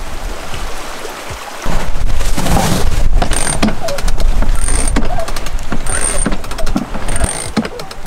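Sailboat winch ratcheting in quick clicks as a line is hauled in, with a short high squeak about every second and a half, four times.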